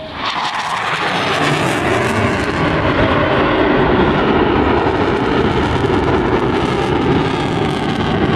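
A Eurofighter Typhoon's twin EJ200 jet engines at high thrust during a low pass. The jet noise builds sharply within the first second, then holds loud and steady.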